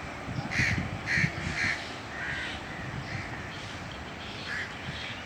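Crows cawing: three loud caws in quick succession about half a second to a second and a half in, then several fainter caws.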